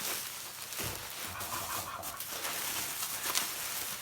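Layers of postal packaging being pulled off by hand: continuous rustling and scraping of wrapping and tape, with a couple of sharp snaps.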